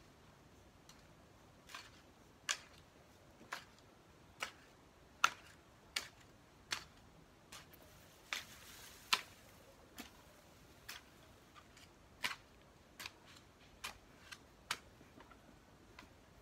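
Long-handled hoe chopping into garden soil: short, sharp clicks, a little more than one a second, with a soft scraping rustle about halfway through.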